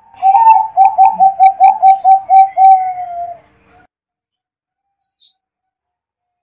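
Zebra dove (perkutut) cooing: a quick run of about ten short notes, slightly falling in pitch, ending on a longer drawn-out note, lasting about three seconds.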